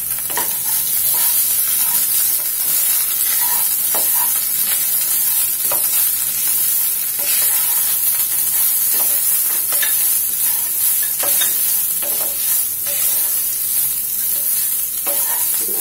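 Raw polau rice frying in oil with ground spices and ginger-garlic paste: a steady high sizzle, broken every second or so by the scrape of a wooden spatula stirring the grains around the pan.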